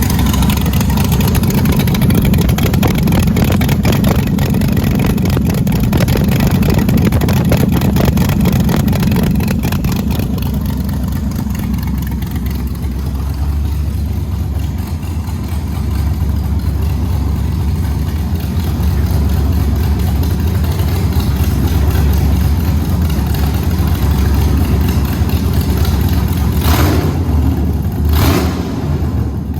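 LS3 6.2-litre V8 in a Holden VX Commodore running steadily at idle, with two short sharp bursts of sound near the end.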